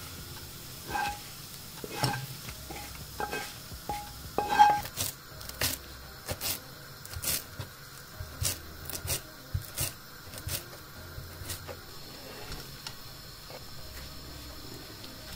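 Utensil knocking and scraping on a frying pan as fried onions and chillies are tipped into a glass bowl, with short ringing clinks. Then a kitchen knife chops fresh coriander on a wooden chopping board in irregular sharp chops, about two a second.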